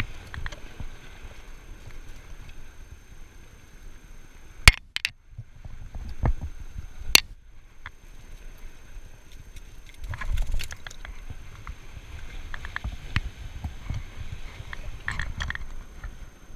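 Low rumble of surf and wind on the microphone, broken by a few sharp clicks and knocks, the loudest about five and seven seconds in, from fishing gear being handled on the rocks.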